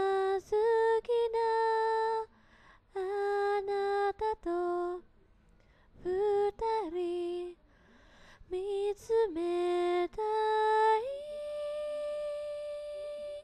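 A woman singing unaccompanied in short phrases with brief pauses between them. Near the end she slides up to a long held high note that fades away.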